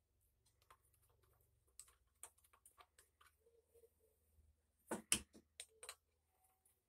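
Faint, scattered small metal clicks and taps of a screwdriver working on an SKS bayonet fitted to the rifle, with a few louder clicks about five seconds in.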